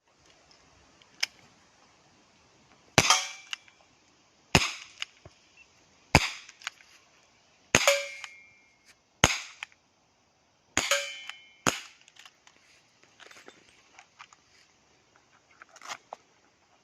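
ASG Dan Wesson 2.5-inch CO2 airsoft revolver firing about seven sharp gas-powered shots, roughly one and a half seconds apart. A few of the shots are followed by a brief ringing tone, and faint clicks and rattles come after the last one.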